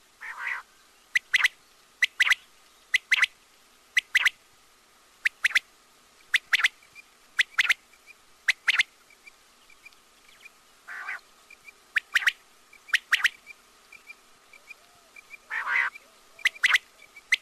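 Quail calling: sharp, high calls in quick pairs, repeated about once a second. Three longer, rougher calls come in between, one near the start, one about eleven seconds in and one near the end.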